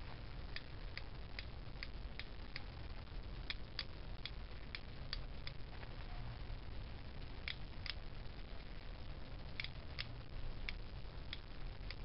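Small spring switch contacts inside a washing machine's water-level pressure switch clicking as they are pushed down by hand and released, making and breaking. About two sharp clicks a second with a couple of short pauses, over a faint low hum.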